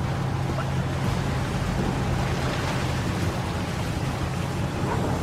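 Boats' engines running and the sea washing, a steady low hum under rushing noise, with a background music bed.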